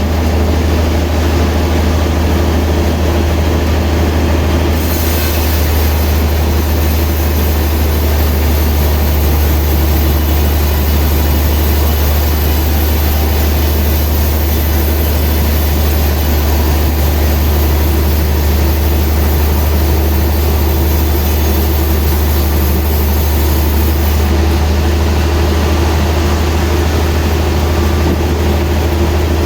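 Sawmill machinery running steadily with a strong deep hum. A high hiss joins about five seconds in and stops about five seconds before the end.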